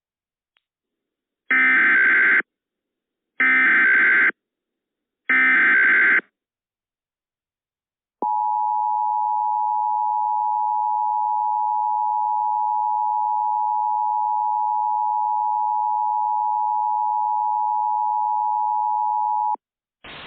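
Emergency Alert System alert tones: three short bursts of the SAME digital header data, about a second each and evenly spaced, then the two-tone EAS attention signal, one steady tone held for about eleven seconds that cuts off sharply.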